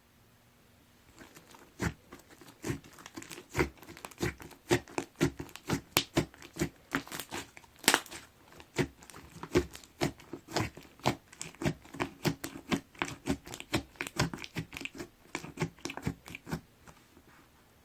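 Hands squishing and pressing a cereal slime, giving a fast run of crackling, popping clicks, several a second. It starts about a second in and stops shortly before the end.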